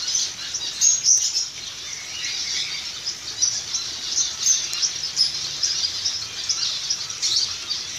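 A flock of zebra finches calling in an aviary: many short, overlapping chirps and calls run throughout, with a few louder calls about a second in and again later.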